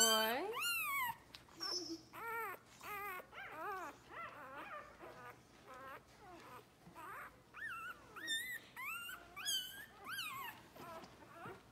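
Day-old puppies squealing and whimpering in a rapid series of short, high cries that rise and fall. The loudest squeal comes right at the start.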